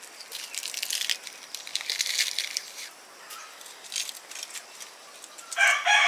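Crackling and rustling from corn ears roasting in their husks over a wood fire as they are turned with metal tongs. Near the end a rooster starts crowing loudly.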